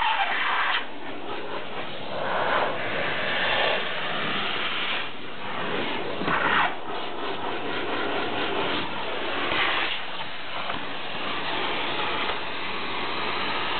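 Vacuum cleaner running steadily, its noise swelling briefly several times.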